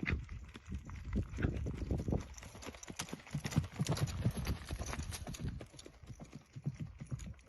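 A horse's hoofbeats clip-clopping in a quick, uneven run of sharp strikes.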